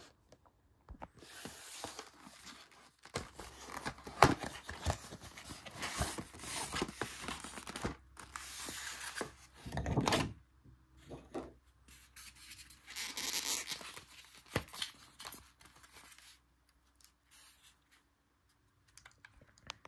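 A model train set's packaging being opened: a cardboard box, a clear plastic cover and a foam tray, with irregular rustling, scraping and a few light knocks. It quietens over the last few seconds.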